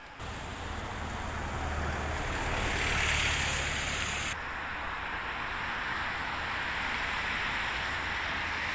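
Wind blowing across the microphone: a steady rushing noise with a low rumble. It swells about three seconds in and turns duller just past four seconds.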